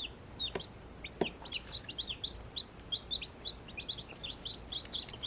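Baby chicks peeping in a brooder: a constant run of short, high peeps, several a second, from a group of chicks with two newly hatched ones among them.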